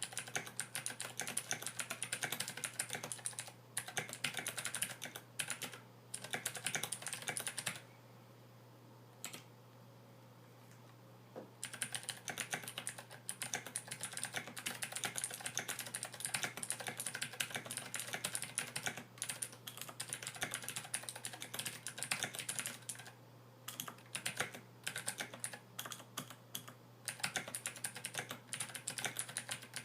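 Fast typing on a Royal Kludge RK61 mechanical keyboard fitted with SA PBT doubleshot keycaps, lubed stabilizers and rubber-tape dampening: a rapid clatter of key presses. It breaks off for a few seconds about eight seconds in, and briefly again near the end.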